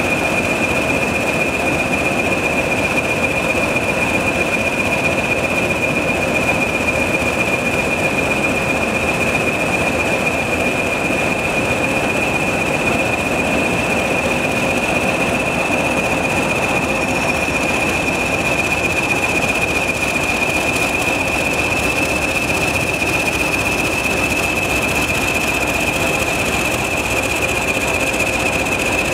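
English Electric Class 20 diesel locomotives running at low speed, their engines giving a steady high-pitched turbocharger whistle over the engine noise.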